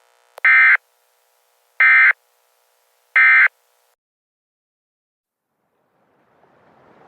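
Emergency Alert System end-of-message code: three short, loud buzzing bursts of SAME digital data, about a second and a half apart, marking the end of the alert. A faint hiss swells in near the end.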